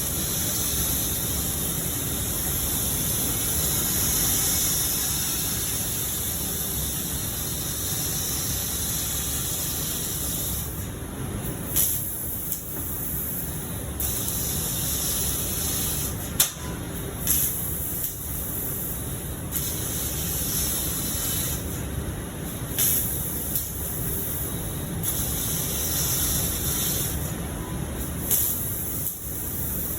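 Torch of a CNC cutting machine hissing steadily as it cuts, its high hiss thinning and returning in patches, with a couple of sharp pops partway through.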